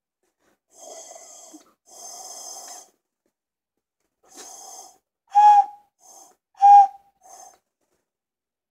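A 12-hole alto C ocarina being tried out by a first-time player: three breathy blows that are mostly air, then two short, clear notes, the loudest sounds, about five and a half and nearly seven seconds in, with fainter short toots between and after them.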